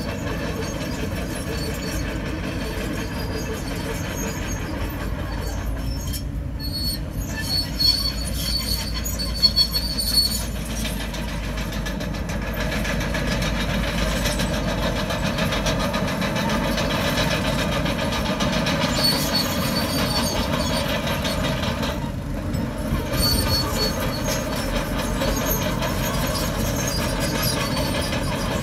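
Komatsu crawler bulldozer working, its diesel engine running steadily under the clank and squeal of its steel tracks; the high track squeal comes up twice, and a few sharp knocks come about eight to ten seconds in.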